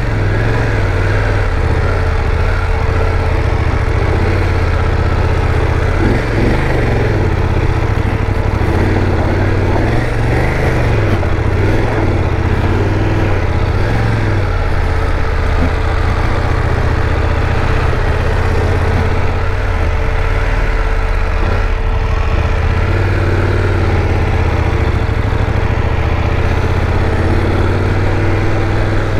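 BMW F 850 GS parallel-twin engine running at low revs in first gear while the motorcycle rolls along slowly, a steady hum with small rises and falls as the throttle is worked.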